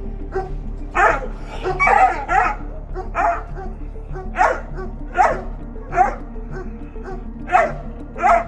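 A dog barking repeatedly, about nine barks spread over several seconds, over steady background music.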